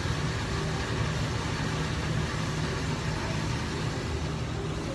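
Steady low mechanical hum with an even hiss underneath, holding level throughout.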